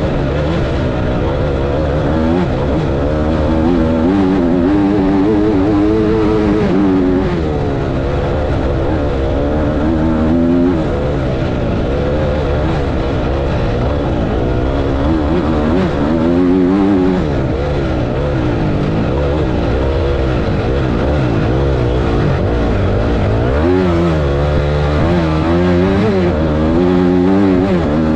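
Dirt bike engine heard from on the bike, revving up and down over and over as the rider accelerates, shifts and backs off around a sand track. Its pitch drops sharply several times, then climbs again.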